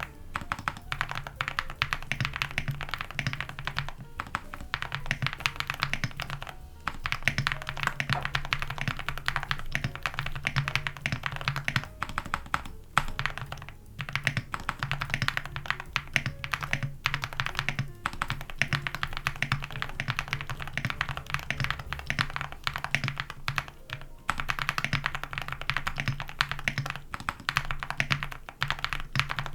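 Continuous fast typing on a full-foam mechanical keyboard with Gateron Moon Landing linear switches, dye-sub PBT keycaps and an aluminium plate, keystrokes running together with a few brief pauses, over background music.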